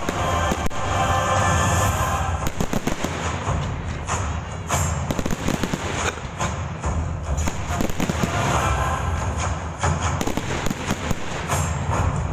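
Aerial fireworks display: a rapid run of bangs and crackling bursts, growing denser about two seconds in. Music plays underneath, heard most clearly at the start.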